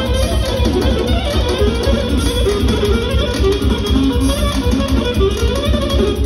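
Live band music: a clarinet playing a fast, ornamented melody over keyboard accompaniment with a quick, steady bass beat.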